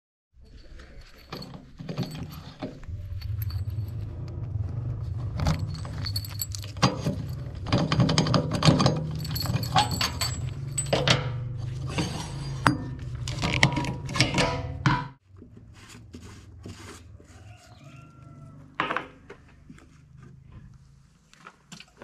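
Keys jangling and a steel padlock clicking and clinking against the metal filler cap as it is unlocked and taken off a backhoe loader's fuel tank, with sharp metal knocks throughout. A steady low hum runs beneath and stops abruptly about fifteen seconds in, after which only fainter handling clicks remain.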